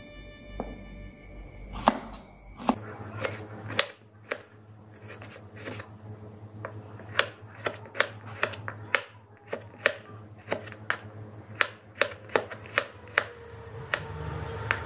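Kitchen knife slicing shallots on a wooden cutting board: sharp taps of the blade hitting the board, a few at first, then a steady run of about two to three a second.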